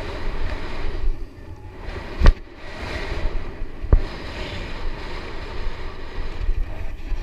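BMX bike riding fast over a dirt track, heard from a camera mounted on the bike: wind buffeting the microphone over a steady rumble, with two sharp knocks about two and four seconds in, the first the loudest.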